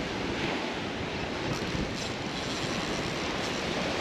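Ocean surf breaking and washing up the beach, with wind rushing over the microphone: a steady, even rush of noise.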